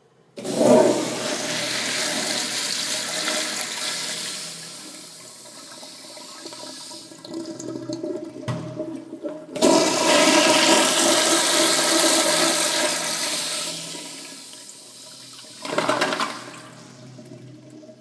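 Flush toilet flushing a bowl packed with wads of toilet paper: a loud rush of water that dies away, then a second loud rush starting about ten seconds in, with a short surge near the end as the paper clears the drain.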